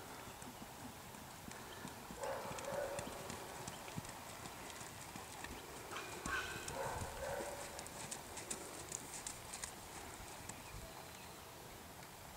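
A horse's hoofbeats on a sand dressage arena, a soft steady footfall, with fine high ticks from about eight to ten seconds in. Two brief louder pitched sounds stand out, about two and six seconds in.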